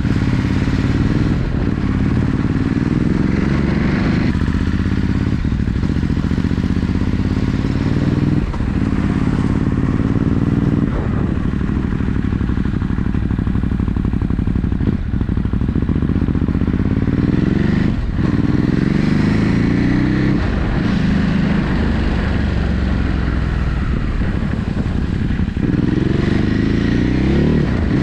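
Ducati Hypermotard 950 SP's 937 cc Testastretta L-twin running through Termignoni silencers, still on the stock map with the catalytic converter fitted, ridden under way. The revs climb and drop again and again, a quick break every two to four seconds as through gear changes, with a deep exhaust note.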